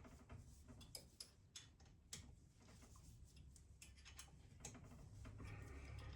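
Faint, scattered light clicks and ticks of metal parts and hand tools being handled while a mini milling machine is taken apart, with a low hum building near the end.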